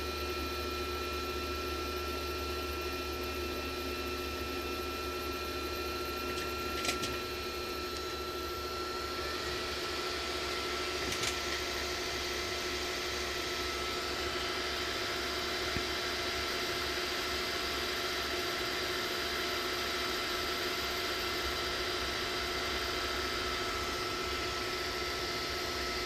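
Creality Ender 3 V3 Plus 3D printer running its self-check: a steady electric whine and hum from its motors and fans. A hiss joins in and grows louder about nine seconds in, with a few light clicks.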